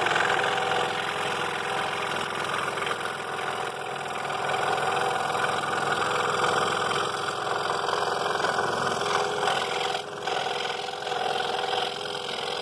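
Scroll saw running steadily with its blade cutting into a wooden board along a pattern line, working in and backing out of narrow cuts.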